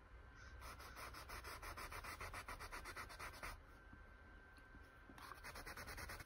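Small paintbrush scrubbing on paper: quick, even scratchy strokes, about eight a second, in a run of about three seconds and a shorter run near the end.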